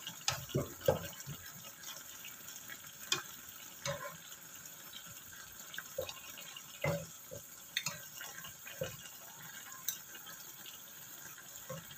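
Fish simmering in a soy-sauce broth in a wok, a steady bubbling hiss, with a spatula knocking and scraping against the pan now and then.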